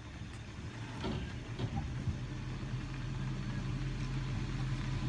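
A vehicle engine idling, a steady low hum that firms up about a second in, with a few faint knocks near the start.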